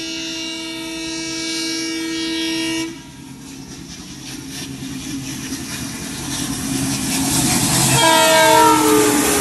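Diesel locomotive horn sounding one long blast of about three seconds as the express approaches, then the rumble of the oncoming train growing louder. Near the end a second horn blast, its pitch dropping as the locomotive passes close by.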